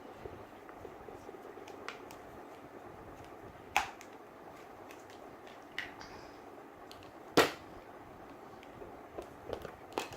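Scattered sharp clicks and taps of Play-Doh plastic tools and toys being handled on a table, two of them clearly louder, about four and seven seconds in, over low room noise.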